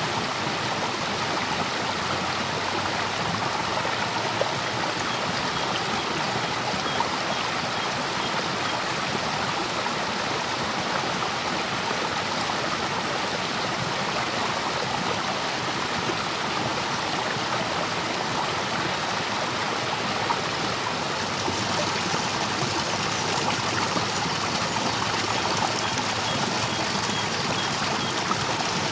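Swollen river in flood rushing over falls and rapids: a steady, unbroken roar of white water, turning a little hissier about two-thirds of the way through.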